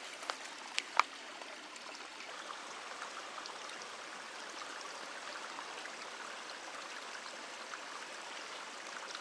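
Steady rushing outdoor noise, with a few sharp clicks in the first second or so.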